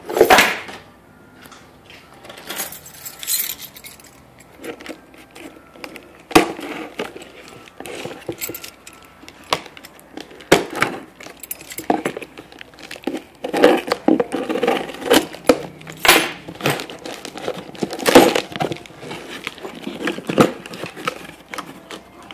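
A cardboard box being cut and pried open with a key: a long run of irregular scrapes, rips and rustles, with keys clinking.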